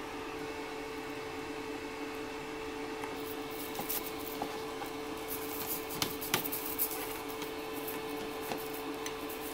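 Faint scratchy brushing and a few light plastic clicks as a toothbrush scrubs a clear resin 3D-printed skull in a plastic tub of isopropyl alcohol, over a steady low hum. The brushing is heard mostly in the middle of the stretch, with two sharper clicks a little past halfway.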